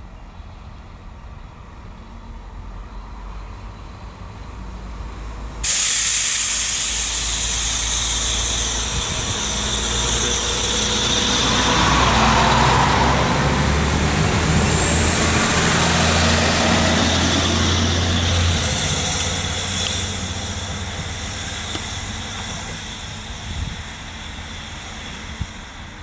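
SA132 diesel railcar passing close by, its engine running under load over the rails. A loud hiss starts suddenly about six seconds in, the engine is loudest as the train goes by, and the sound fades as it pulls away.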